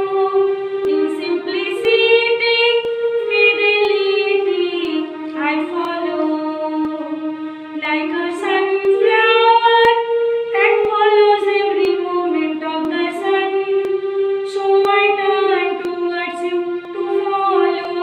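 A woman singing solo in a slow melody, holding long notes that step up and down between short pauses for breath.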